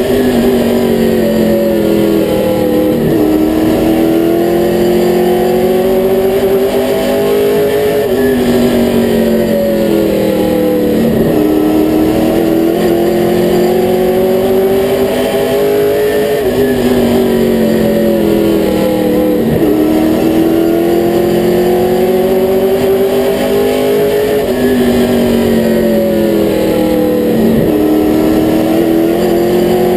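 V8 engine of a Limited Late Model race car heard from inside the cockpit at full race pace. Its pitch climbs and then drops in a regular cycle about every eight seconds as the car accelerates down each straight and lifts for each turn of the short oval.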